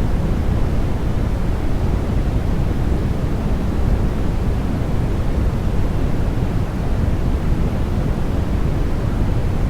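Continuous synthetic sleep noise for babies: a steady, even rushing hiss with no variation, weighted toward the low end so it sounds deeper and softer than pure white noise.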